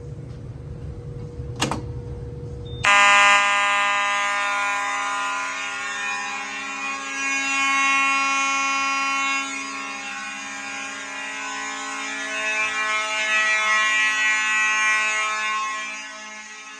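A click, then about three seconds in fire alarm horns start sounding continuously: a steady, buzzy horn tone held without pauses, the system switched from march-time coding to a continuous signal.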